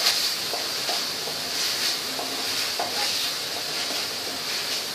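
Ground onion, ginger and garlic paste sizzling in hot oil in a nonstick kadai. A wooden spatula stirs it with soft scrapes about once a second. The paste is being sautéed until its raw smell cooks off.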